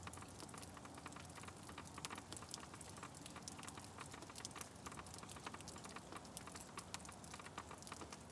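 Icy precipitation from an ice storm pattering steadily: a faint, dense run of tiny ticks.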